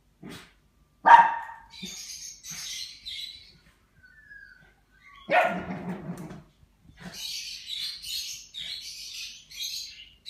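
Small dog play-barking at a teddy bear: two loud, sharp barks, about a second in and again about five seconds in, with stretches of hissy scuffling noise between and after them.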